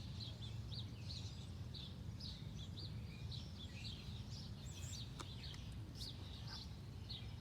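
Small birds chirping: quick, high, repeated chirps, several a second, over a steady low hum.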